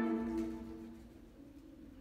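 Solo viola improvising: a bowed note held from before fades away over about the first second, dying out in the cave's long echo, and a faint, soft low tone lingers after it.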